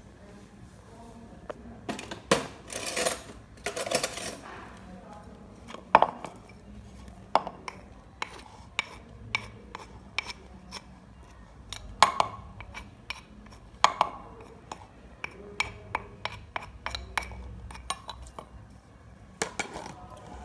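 Wooden pestle and a metal spoon working a wooden mortar of pounded chili and garlic: a couple of seconds of scraping about three seconds in, then a long run of sharp, irregular knocks and taps, a few of them much louder.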